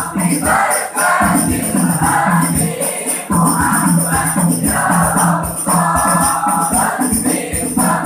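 A group singing an Islamic devotional song in phrases about a second long, over a steady beat of frame drums and jingling tambourine.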